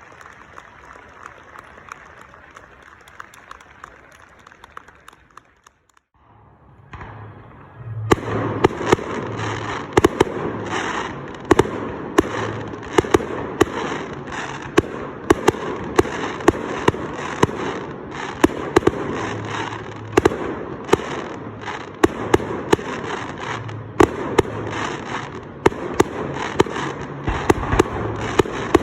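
Faint applause dying away, then a few seconds in a dense fireworks barrage starts: rapid sharp bangs, several a second, over continuous crackling.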